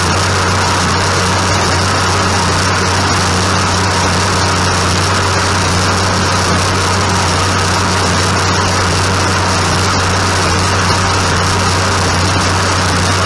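Tractor engine running steadily under even load, with a constant low drone.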